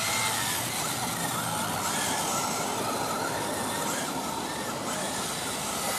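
Electric 1/10-scale Kyosho Fazer Mk2 RC touring cars racing, their motors giving a faint whine that rises and falls with the throttle over a steady background hiss.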